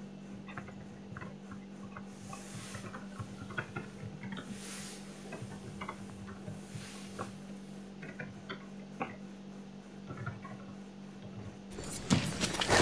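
Computer keyboard keys clicking at an irregular pace as text is typed, over a steady low hum. A louder burst of noise comes in near the end.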